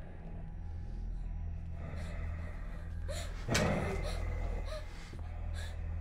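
A young girl breathing hard through the mouth, with one sharp, voiced gasp about halfway through that is the loudest sound, over a low steady hum.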